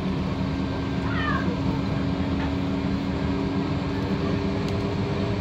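Interior running sound of a 2012 Scania K230UB single-deck bus on the move, its engine and drivetrain giving a steady hum. About a second in, a short high squeak falls in pitch.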